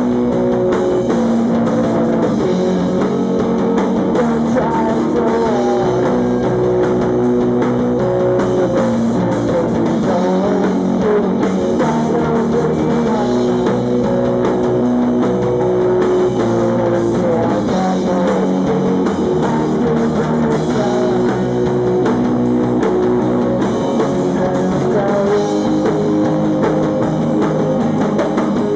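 Live rock band playing: electric guitar, drum kit and bass guitar, loud and steady with sustained guitar notes over the drums.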